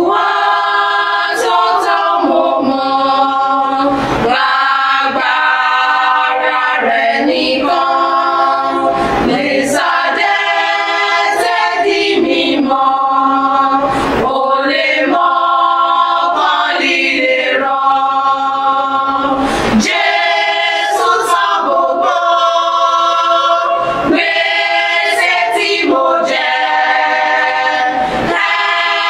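Women's choir singing a cappella, with no instruments, in phrases of held notes broken by short breaths.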